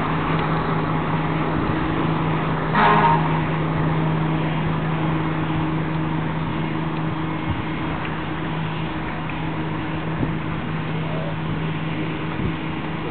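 Steady low engine drone from fire trucks running at the scene, with a brief, louder pitched sound about three seconds in.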